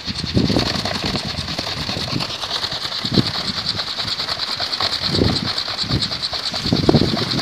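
A kolecer, the Sundanese wind propeller on a tall pole, spinning in the wind: a steady high whirring hum, rapidly pulsed by the passing blades, with low rumbling swells of wind a few times.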